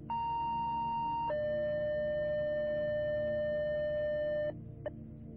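First-responder radio alert tone, a two-tone sequential page that calls stations to listen before a dispatch. A higher tone holds for about a second, then a lower tone holds for about three seconds and cuts off, followed by a brief blip. A low steady drone runs underneath.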